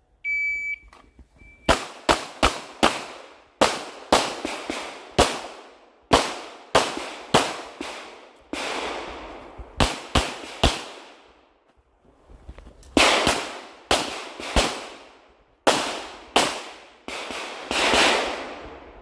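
An electronic shot timer beeps once. A little over a second later a handgun starts firing rapid pairs and strings of shots, about thirty in all, each with a short echo, with brief pauses near the middle of the string.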